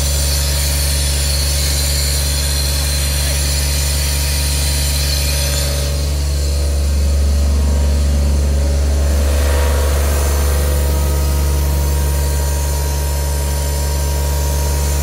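Diesel engine of a CompAir Holman 4 tow-behind site air compressor running steadily with a deep, even hum, a little louder in the middle.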